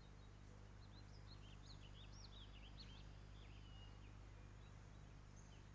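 Near silence: faint chirping of small birds, a quick run of chirps between about one and three seconds in, over a low steady hum.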